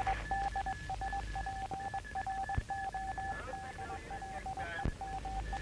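Morse code on a radio telegraphy receiver: a single steady beep tone keyed on and off in short and long signals.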